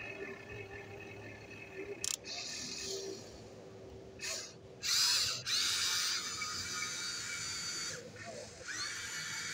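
The small geared electric motors of a Huina RC excavator whine in short bursts as the boom, arm and tracks are driven. Each burst starts and stops abruptly, some rise in pitch as they spin up, and there are a few clicks in between. The loudest run is about five seconds in.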